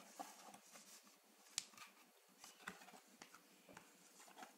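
Near silence with faint, scattered taps and paper rustles from a toddler handling a paper colouring book on a tiled floor.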